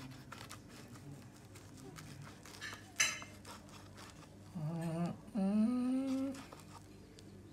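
A person humming two short notes, the second gliding slightly upward, a little past halfway through. A brief scratchy scrape about three seconds in.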